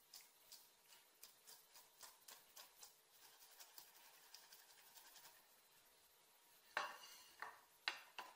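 Faint kitchen utensil clinking against a dish: a run of light taps, about two a second, then a louder clatter of knocks near the end.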